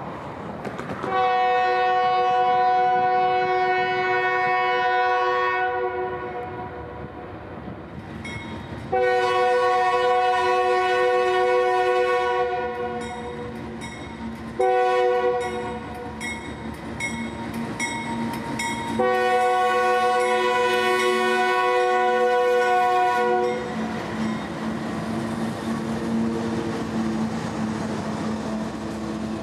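Union Pacific diesel locomotive's horn, a chord of several notes, sounding the grade-crossing pattern: long, long, short, long. The locomotive's diesel engine and the wheels of the tank cars then roll past on the rails.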